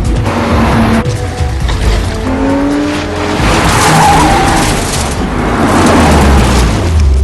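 A car driven hard, its engine revving up and down and its tyres squealing through skids, over a film score.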